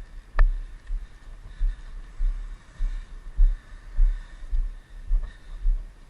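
Low muffled thumps on the microphone, irregular, roughly every half second, with one sharp click about half a second in.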